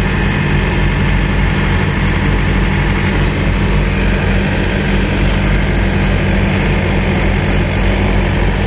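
Peterbilt semi tractor's diesel engine idling steadily, heard up close from the deck behind the cab.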